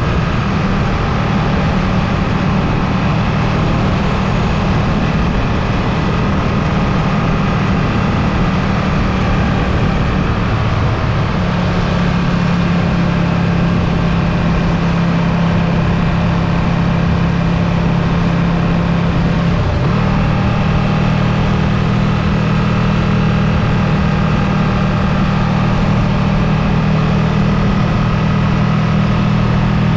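Ducati Streetfighter V2's 955 cc L-twin engine running steadily at road speed over a constant rush of wind and road noise. The engine note shifts about a third of the way in and changes again with a brief break about two-thirds in.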